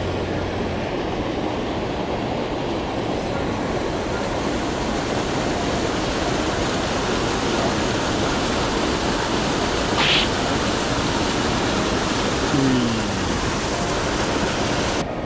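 Steady rush of a mountain stream's flowing water, with a short sharp hiss about ten seconds in and a brief falling tone a little later.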